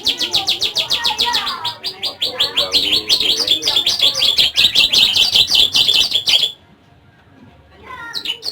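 A bar-winged prinia (ciblek) singing a rapid, even series of high chirps, about ten a second. The series stops abruptly about six and a half seconds in, then starts again just before the end.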